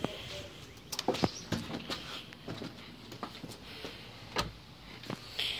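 Door handle and latch clicking and knocking as a door is opened and shut, a few sharp clicks scattered through.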